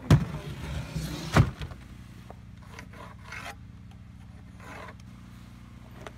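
Wooden nesting boxes being handled with gloved hands: two sharp knocks about a second apart, then scraping and rubbing of wood, over a low steady hum.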